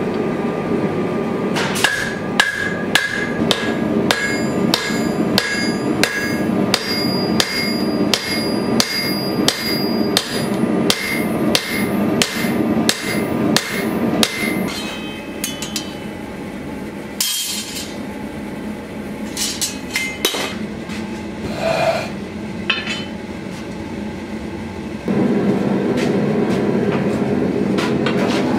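Hand hammer striking a glowing hot sword blade on an anvil about twice a second, each blow ringing, for some thirteen seconds, then a few scattered knocks. A steady machine hum runs underneath and gets louder near the end.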